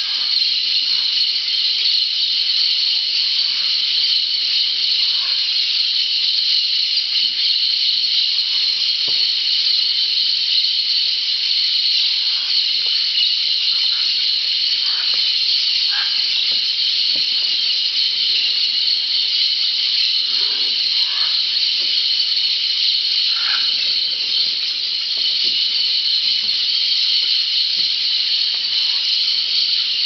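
Dense, steady high-pitched chorus of rainforest insects, with scattered faint short calls from parrots gathered at a clay lick.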